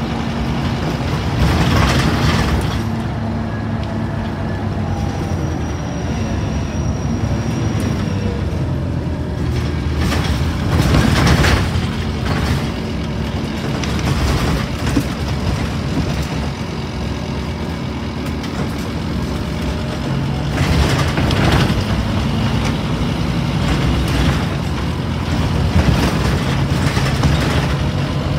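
Inside a bus on the move: the diesel engine runs steadily, its pitch shifting with speed, under road and body noise, with several short surges of noise.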